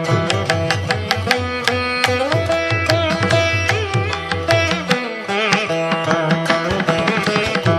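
Instrumental background music in an Indian classical style: plucked string notes over a held tone, with the bass dropping out for a couple of seconds near the end.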